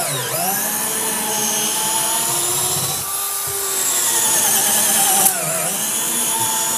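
A Bosch 12V cordless drill/driver in low gear (speed one) boring a large twist bit into a wooden board. The motor whines steadily under load, its pitch sagging briefly as it bogs just after the start and again about five seconds in.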